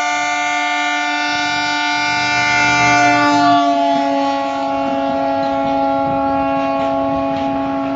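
Electric locomotive's horn held in one long blast as the train passes, its pitch dropping about three and a half seconds in as the locomotive goes by, over the rumble of the passing coaches.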